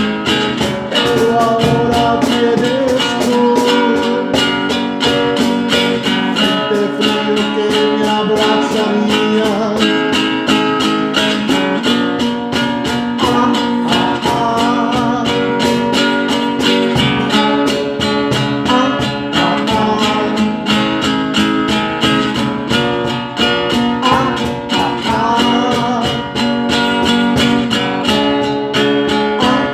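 Music led by plucked acoustic guitar, playing steadily throughout.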